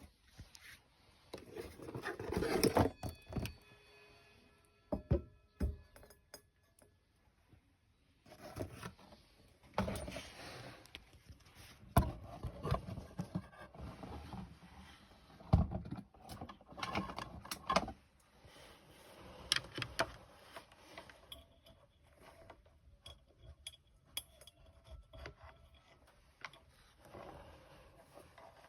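Irregular clunks, knocks and metallic jangling, as of metal parts being handled, with a faint ringing tone that lingers for a few seconds near the start.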